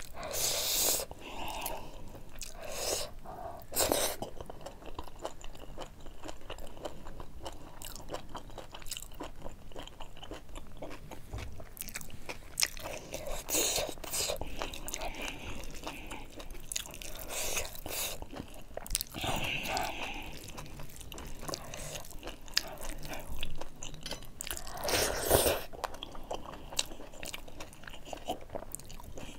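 Close-miked chewing of mouthfuls of rice and buffalo meat curry, a steady run of small mouth clicks with a few louder bites along the way. Fingers mix rice on a steel plate in between.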